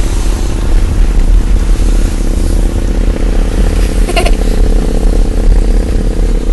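Steady low rumble of a car running, heard from inside the cabin, with one short higher sound about four seconds in.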